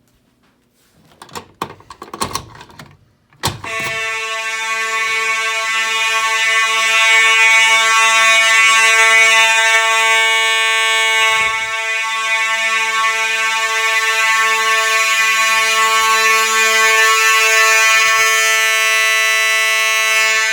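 A few knocks and clatter, then about three and a half seconds in a Simplex fire alarm horn starts sounding a loud, steady, buzzy tone without any pulsing.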